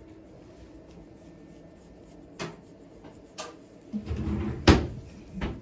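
A few separate knocks, then a short clattering rumble with one sharp, loud knock about three quarters of the way through and a last knock near the end, like a cupboard or drawer being opened and shut.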